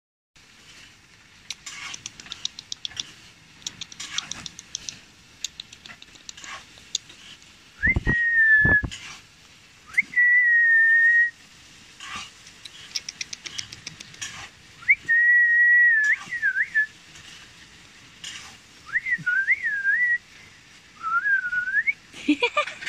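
A person whistling to a puppy: short phrases of clear notes, some held steady and some sliding up and down. Quick runs of clicking sounds come before and between the whistles.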